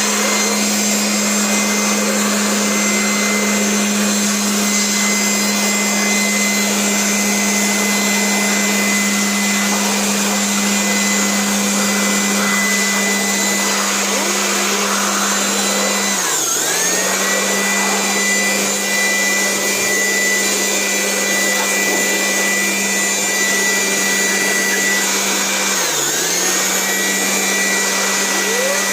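Small electric blower motor running steadily with a high whine, blowing dust and dirt out of the amplifier. Its pitch sags briefly and recovers twice, once past the middle and once near the end.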